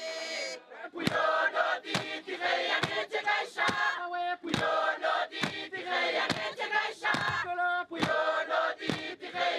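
Group of voices chanting and singing together over a steady beat of sharp percussive strikes, about two a second, accompanying a Kanak traditional dance. A held sung chord ends about half a second in, just before the beat starts.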